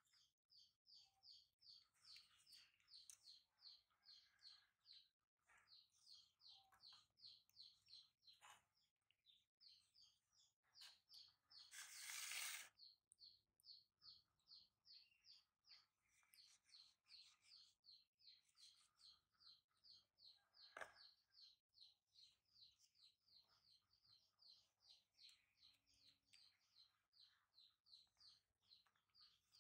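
Faint bird chirping: a steady, fast run of short high chirps, about three to four a second. About twelve seconds in, a brief burst of hiss is the loudest sound, and a single sharp tick follows near twenty-one seconds.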